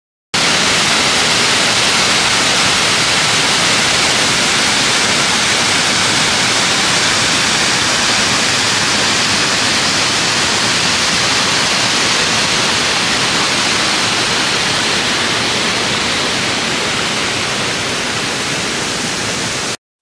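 Waterfall pouring over rock ledges into a pool: a steady, even rushing of water that starts abruptly a moment in and cuts off just before the end.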